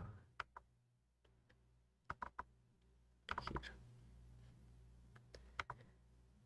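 Computer mouse clicks, single clicks and quick pairs in small groups, over a faint low hum.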